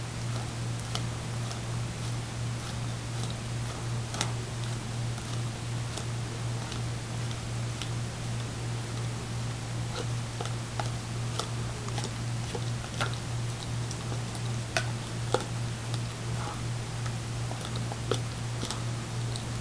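Greyhound licking dog ice cream out of a small cup, its tongue making irregular wet clicks and taps against the cup, over a steady low hum.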